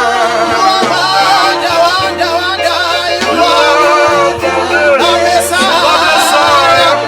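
Gospel worship song: voices singing long, wavering held notes over an instrumental accompaniment with a steady, slow-moving bass line.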